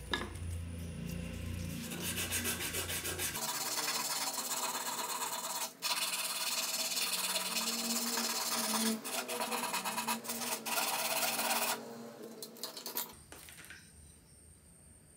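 Coarse sandpaper (P60/P100) rasping steadily as a strip of it is pulled rapidly back and forth around a thin wooden stick held in a vise. The sanding pauses briefly once and stops near the end.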